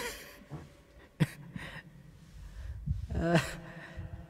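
People laughing in short bursts: breathy, gasping laughs, with a longer voiced laugh about three seconds in.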